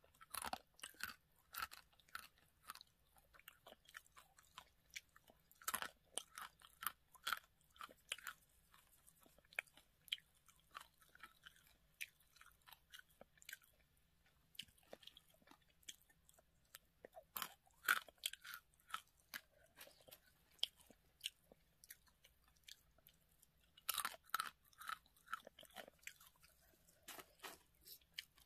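Close-up crunching and chewing of dry, uncooked Ppushyeo Ppushyeo snack ramen noodles, eaten raw. It comes in clusters of sharp crunches, several times over, with sparser crackles between.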